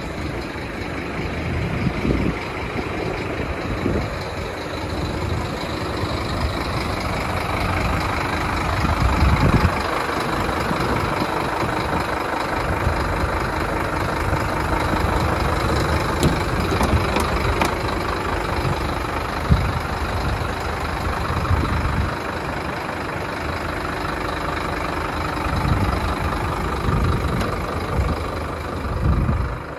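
Large diesel truck engine idling steadily, with uneven low rumbles coming and going over it.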